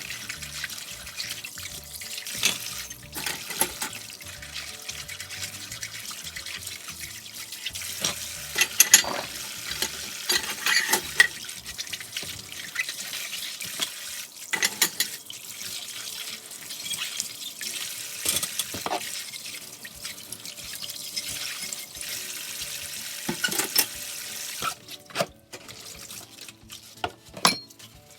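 Kitchen tap running into a sink during dish-washing, with scattered clinks and knocks of dishware. The water shuts off near the end, leaving a few clicks.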